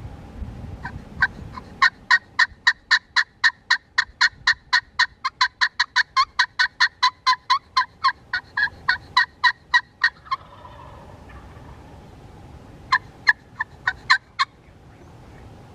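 Turkey yelping: a long run of loud, evenly spaced notes, about four or five a second for some nine seconds, then after a pause a short burst of six or seven more. Wind rumbles underneath.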